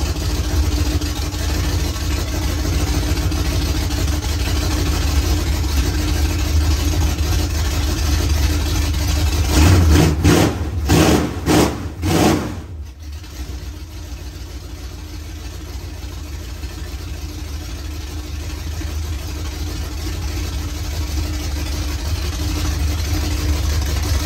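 1977 Ford F-150's 351M V8 running at idle, blipped on the throttle several times in quick succession a little before halfway, then dropping back to a quieter, steady idle.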